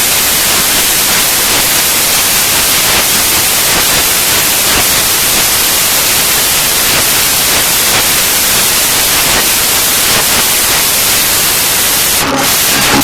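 Loud, steady hiss of noise. Near the end, a few short pitched notes come in over it.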